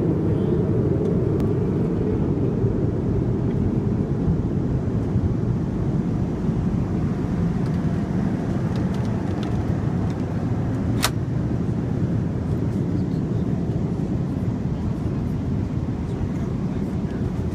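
Steady low cabin noise of an Airbus A330-200 in flight, the hum of engines and airflow heard inside the passenger cabin, with one sharp click about eleven seconds in.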